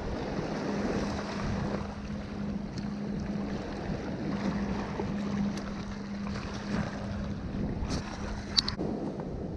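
Wind buffeting the microphone over small waves washing against shoreline rocks. A steady low hum runs underneath and stops near the end, just after a single sharp click.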